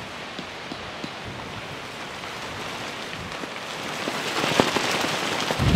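Wind rushing across the microphone, growing stronger about four seconds in, with a low buffeting thump near the end.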